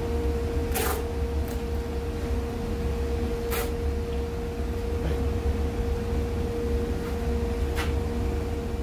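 Handheld electric sander running steadily against the stove's metal trim, with a steady high hum over a low rumble and a few sharp knocks. It stops just at the end.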